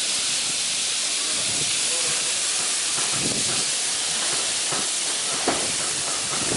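Meat skewers sizzling on a hot flat-top griddle: a steady, loud hiss of fat and juices frying. A brief knock sounds about five and a half seconds in.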